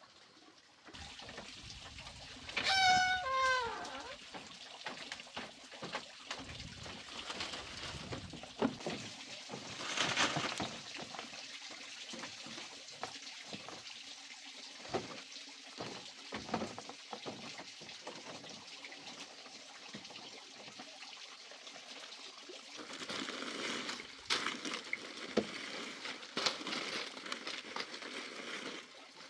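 A loud animal call falling in pitch about three seconds in. Later, rustling and light splashing with scattered knocks as chopped banana leaves are dropped into a fish pond.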